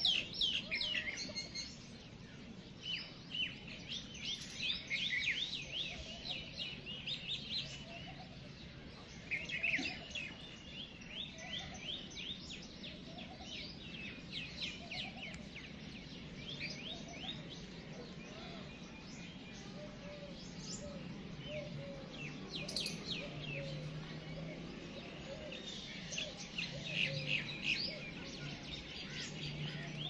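Several small birds chirping, with quick series of short high chirps coming in clusters and brief lulls between, over a faint low steady hum.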